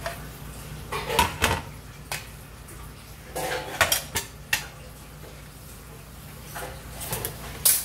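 Metal kitchen utensils and dishes clattering: short runs of clinks and knocks about a second in, again from about three and a half to four and a half seconds, and near the end.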